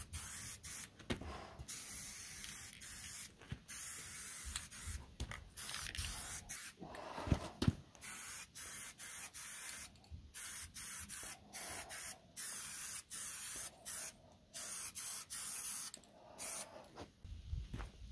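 Aerosol can of black spray paint hissing in a long run of short bursts with brief breaks between them, stopping shortly before the end. Two low thumps about halfway through.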